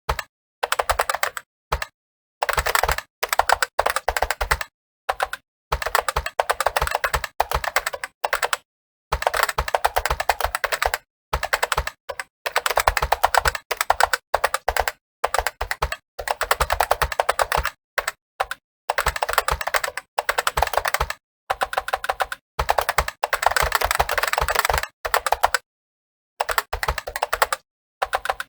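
Fast typing on a computer keyboard: rapid runs of key clicks lasting a second or a few seconds, broken by brief pauses.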